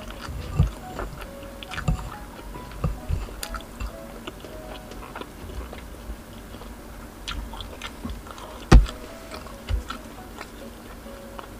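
Close-miked eating sounds: chewing, with clicks and soft knocks as fish balls are worked off a bamboo skewer into a plastic sauce cup. The loudest is a single thump a little before the ninth second. Faint background music runs underneath.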